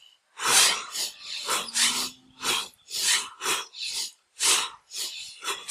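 Fast, forceful breathing of two people doing vyaghra kriya (tiger breathing) at speed: quick rhythmic breaths in and out, the exhales blown through the mouth, about two breaths a second.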